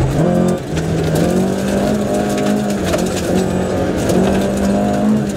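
Rally car engine running hard on a gravel special stage, its pitch dropping and climbing in steps with gear changes and throttle lifts, then holding high for a few seconds. Short ticks of gravel striking the car are scattered throughout.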